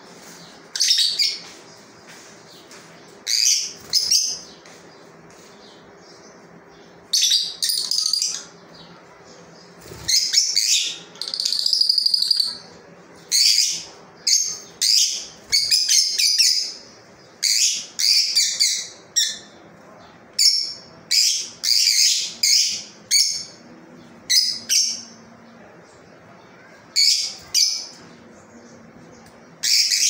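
A group of caged peach-faced lovebirds giving short, sharp, high-pitched chirps and shrieks in bursts, few at first, then coming thick and fast through the middle, over a faint steady hum.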